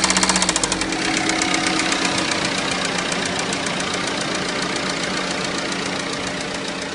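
Renault Scenic's 1.5 dCi four-cylinder diesel knocking: loud, even strokes fall back about half a second in as the revs drop, then it runs on with a steady rhythmic knock at lower speed. The knock comes in between 1500 and 2500 rpm and was not cured by new injectors.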